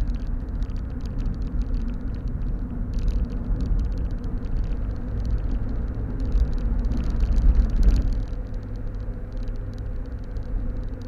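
Mazda MX-5 NB's 1.8-litre four-cylinder engine running under way with steady road rumble, heard inside the cabin. The engine grows louder about seven seconds in, then falls away suddenly about a second later.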